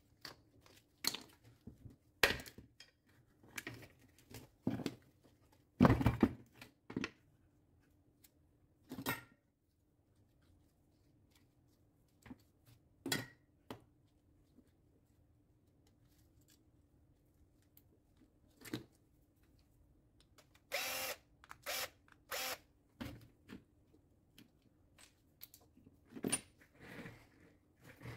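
Scattered clicks, knocks and scrapes of plastic and metal parts being handled as the switch assembly is worked out of a Makita GA9020 angle grinder's rear handle housing. A short cluster of rattling scrapes comes about three quarters of the way through.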